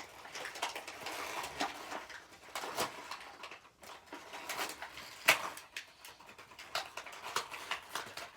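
Beyblade packaging being torn open and handled: irregular crinkling and rustling of plastic and cardboard with many small clicks, the loudest a sharp click about five seconds in.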